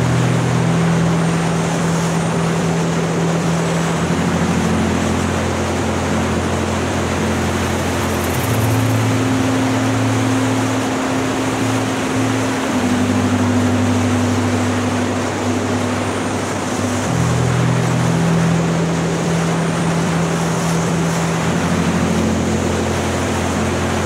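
Steady rush of airflow and engine noise from a microlight in flight, its Rotax 912 engine running at a constant cruise setting. Background music of long held chords, changing every few seconds, plays over it.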